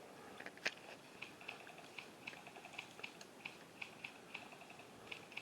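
Quiet background with faint, high ticks repeating irregularly a few times a second, and one sharper click about two-thirds of a second in.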